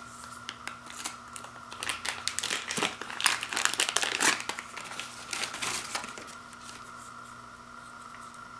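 Small clear plastic bag crinkling as hands handle it and work it open, in dense crackly rustles that peak in the middle and die away about six seconds in.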